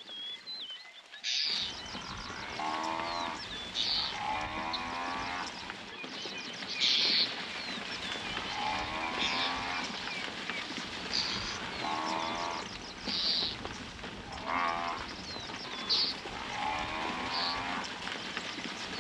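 African buffalo herd lowing, repeated calls every couple of seconds over the noise of the herd, mixed with short high rasping calls of red-billed oxpeckers.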